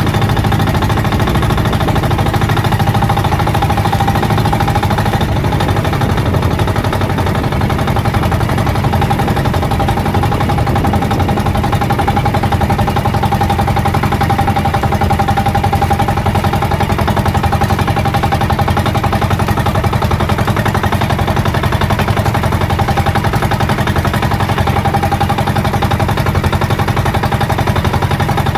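Outrigger fishing boat's engine running steadily at a constant trolling speed, a loud even drone that does not change.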